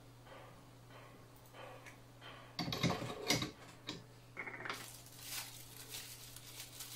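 Metal and plastic parts of a microscope stand being handled and fitted together. A cluster of knocks and clatter comes about three seconds in, and a short squeak just after four seconds. Near the end there is crinkling like a plastic bag being handled, all over a faint steady hum.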